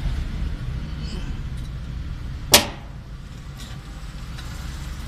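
One sharp metallic click about halfway through as pliers work the steel float arm of a fuel gauge sender unit, bending it, over a steady low background rumble.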